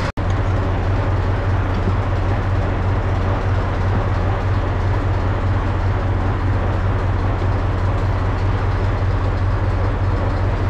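Tractor diesel engine running at a steady speed, a constant low drone, driving the mower so that its gearbox oil warms up.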